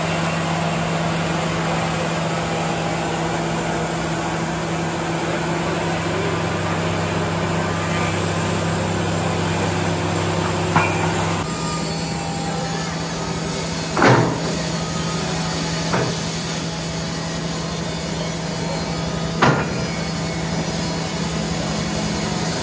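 A machine running steadily with a constant low hum; its tone drops about halfway through. Four sharp knocks sound over it in the second half.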